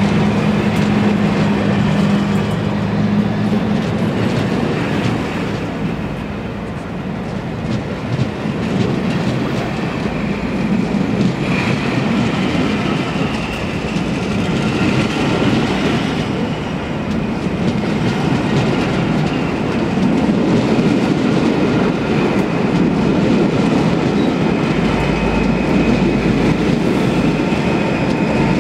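Passenger coaches of a departing train rolling slowly past: a steady rumble with wheels clicking over rail joints and some faint wheel squeal. The locomotive's engine hum dies away over the first few seconds.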